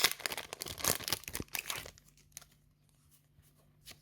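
Foil Yu-Gi-Oh booster pack wrapper crinkling and tearing as a pack is opened: a dense crackle that stops about halfway through, followed by a couple of faint taps.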